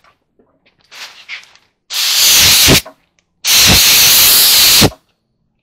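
Compressed-air blow gun blasting air to blow dust off clothing: a short weak puff about a second in, then two loud hissing blasts, the second about one and a half seconds long, each starting and stopping sharply.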